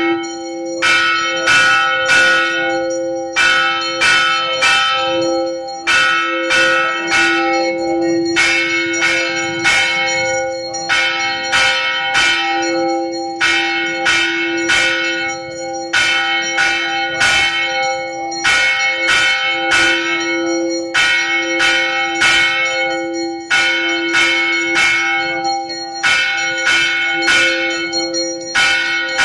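Hindu temple bells ringing in quick bursts of several strikes, one burst about every two and a half seconds, over a steady ringing hum that never dies away.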